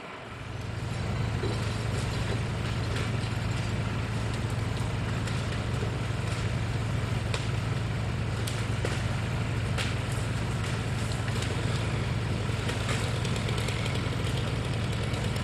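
Engine running steadily at a constant speed, with a low hum and a few faint scattered clicks over it.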